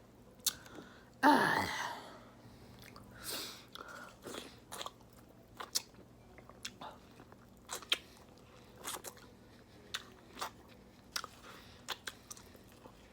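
Close-miked eating: a person chewing, with wet mouth clicks and smacks every second or so. About a second in comes a short throaty vocal sound that falls in pitch, the loudest thing.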